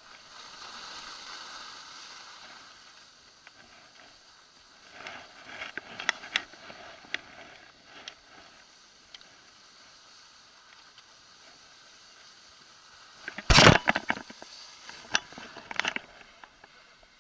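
Skis sliding and scraping over packed snow, a soft hiss with scattered clicks and knocks, and one loud thump about thirteen and a half seconds in.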